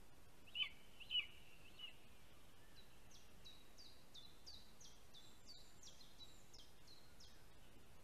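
Two sharp bird calls half a second apart about a second in, with a fainter third after them. Then a small songbird sings a run of about a dozen quick, high, falling notes over a faint steady hiss.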